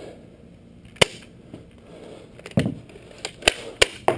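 A series of sharp clicks and knocks: one about a second in, a duller thud a little later, then four in quick succession near the end.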